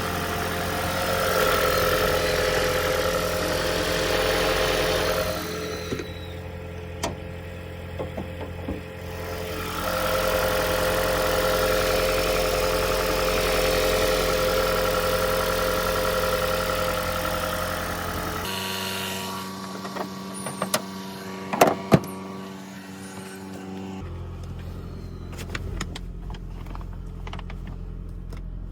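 Toyota Prius running: a steady mechanical hum and whine that rises and falls in level across several short segments, with a few sharp clicks a little past the middle.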